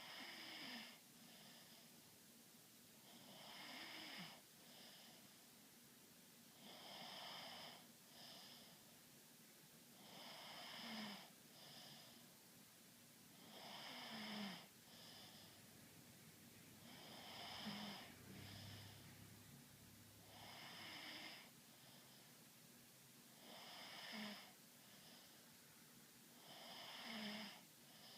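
Faint snoring, one snore about every three and a half seconds. Each has a high whistling note in it and is followed by a short second puff.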